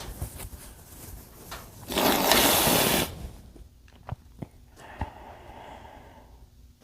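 A man's loud, forceful blast of breath into a bandana, about a second long, starting about two seconds in. A few faint clicks and soft breathing follow.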